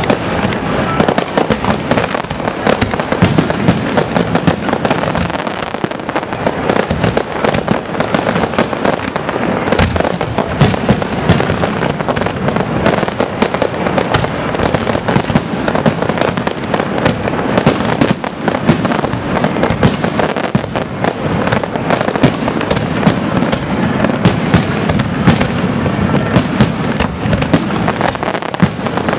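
Aerial fireworks display shells bursting overhead in a dense, continuous barrage: bangs and crackles many times a second, without a pause.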